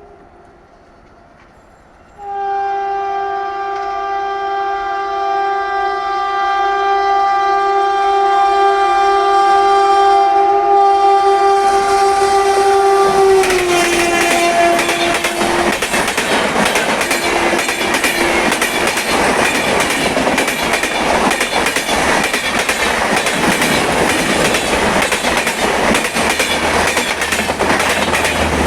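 Indian Railways locomotive horn sounding one long blast, starting about two seconds in, its pitch dropping slightly as the locomotive passes. The train then rushes past with a loud rattle of wheels over the rail joints.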